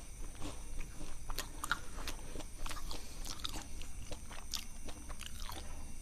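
A person chewing a crunchy snack close to the microphone, with irregular crunches and crackles.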